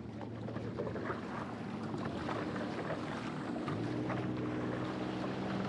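Water splashing and lapping around a stand-up paddleboard being paddled, with wind noise on the microphone.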